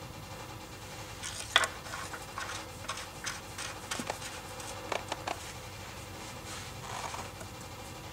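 Oil filler cap being fitted back into a Yamaha Gear scooter's engine case by a gloved hand: a run of small clicks, taps and scrapes, the sharpest about a second and a half in, then a softer rustle near the end.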